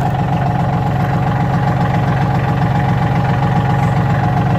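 Backhoe tractor's engine idling steadily.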